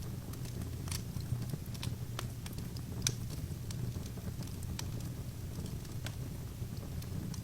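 Wood fire burning in an open fireplace, crackling: scattered sharp pops and snaps over a steady low rumble of the flames, the loudest pop about three seconds in.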